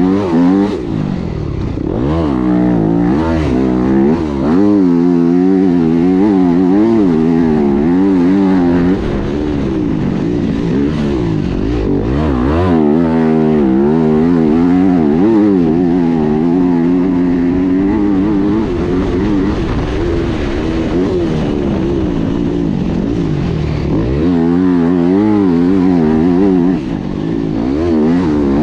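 Yamaha dirt bike engine under way, revving up and down over and over as the throttle is worked, the pitch rising and falling in quick swings. It holds steadier for a while in the middle, and briefly drops off near the end before picking up again.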